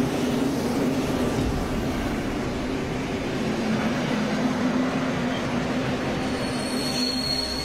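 Metro train running along the rails into a station, a steady rumble. A high, thin squeal comes in near the end.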